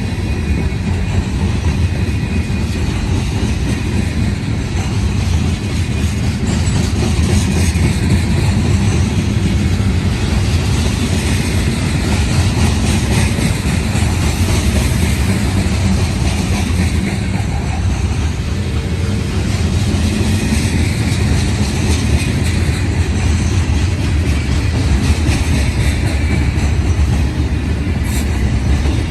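CSX manifest freight train's cars rolling past, a steady loud rumble of steel wheels on the rails.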